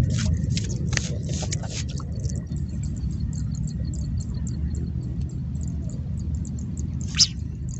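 Wind buffeting the microphone as a steady low rumble, with a scatter of faint small clicks and ticks and one short, louder rustle near the end.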